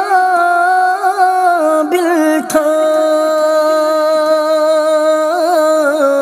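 Devotional Urdu naat sung as background music, a voice holding long notes that waver slightly between lines.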